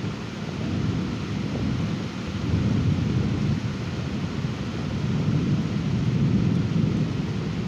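Thunderstorm: low rolling thunder that swells about two and a half seconds in and again around six seconds, over a steady hiss of rain.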